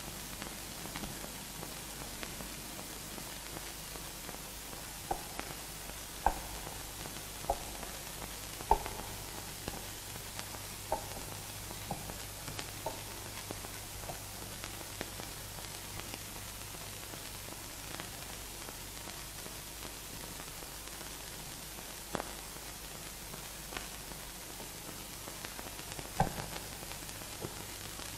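Steady hiss and a low hum of an old film soundtrack, with scattered faint clicks and pops.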